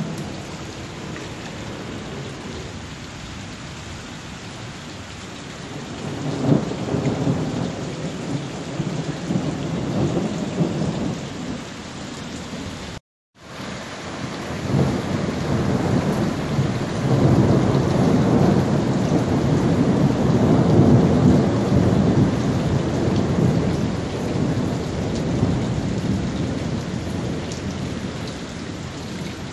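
Heavy rain pouring in a thunderstorm, with long low rolls of thunder swelling in and out, the longest in the second half. The sound drops out for a split second about thirteen seconds in.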